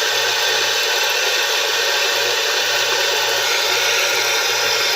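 Tap water running steadily, rinsing the leftover lather out of a shaving brush.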